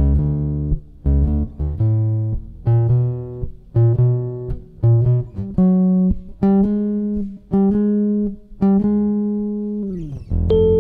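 Background music: a run of plucked guitar notes over low bass notes, with a note sliding down in pitch near the end.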